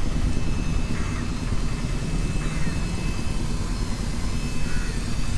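Steady street traffic noise, with motorcycles and other vehicles running along a wet road.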